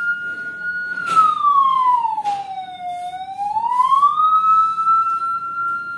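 CJB 200 W electronic siren module sounding a slow wail: a held high tone that sweeps down about a second in, bottoms out around three seconds, then climbs back up and holds high again. The siren is working properly.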